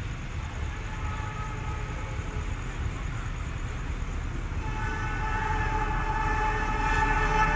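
Approaching train: a low rumble that grows steadily louder, then the train horn sounding from about five seconds in, held and getting louder as it nears.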